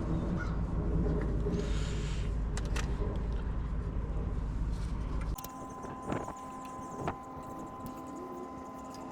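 A steady low machine hum that cuts off abruptly about five seconds in. A quieter stretch follows, with a faint steady high tone and a couple of sharp clicks.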